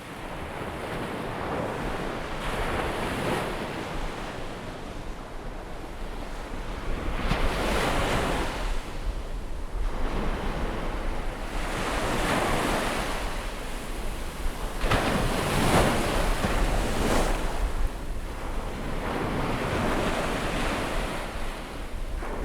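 Ocean surf: waves breaking and washing in, a rushing surge every few seconds over a steady background wash.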